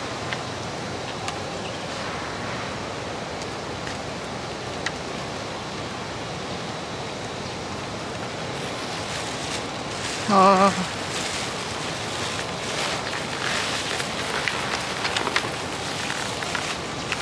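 Steady rushing background noise, with one short warbling, pitched call or hum about ten seconds in that stands out as the loudest sound.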